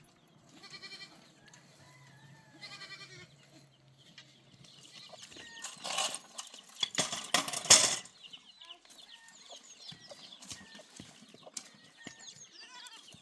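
Goats bleating, two short calls near the start, then a loud rough burst of noise lasting a few seconds, followed by chickens clucking and chirping in quick short calls.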